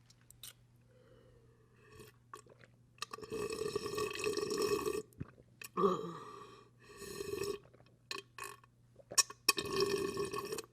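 A woman burping loudly, long drawn-out belches. The first starts about three seconds in and lasts about two seconds, and the second comes near the end, with shorter sounds between them.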